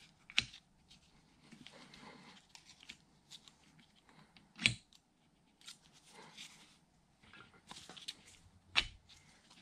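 Small metal clicks and scrapes as a steel worm and its shaft are fitted into a Bridgeport milling machine's quill housing and the key is lined up with a screwdriver. Three sharp clicks stand out: near the start, about halfway (the loudest) and near the end.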